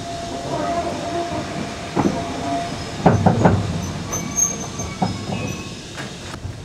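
Railway carriages moving slowly along a station platform: a thin steady squeal from the running gear for the first couple of seconds, then heavy metallic clanks and knocks, with a cluster of three about three seconds in and a few more after.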